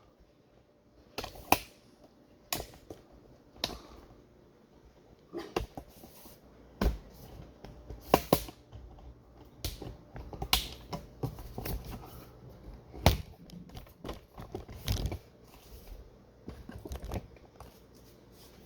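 Irregular short clicks, taps and knocks at uneven intervals, some louder than others.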